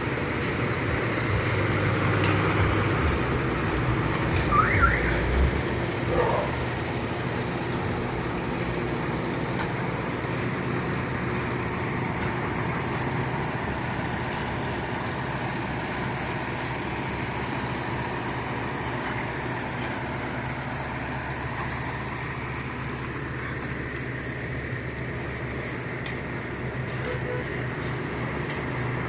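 Heavy construction machinery engine running steadily, with two short squeals about five and six seconds in.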